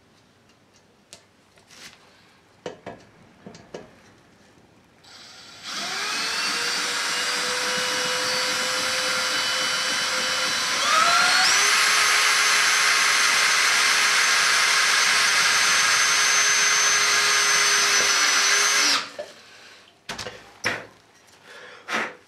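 DeWalt cordless drill driving a self-drilling screw into a steel square tube: the motor runs steadily for about thirteen seconds, speeds up with a rise in pitch about halfway, then stops abruptly. Light handling clicks before and after.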